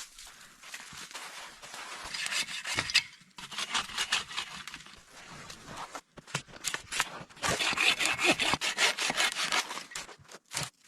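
Hand saw cutting through wood in quick back-and-forth strokes, stopping and starting a few times.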